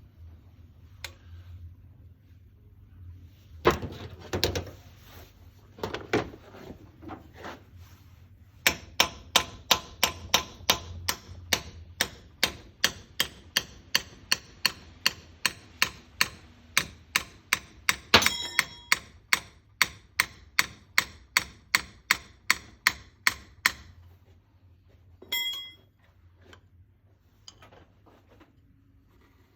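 A hammer tapping on metal in an even, steady run of sharp strikes, about two to three a second, after a few scattered knocks; twice a metal part gives a short ring.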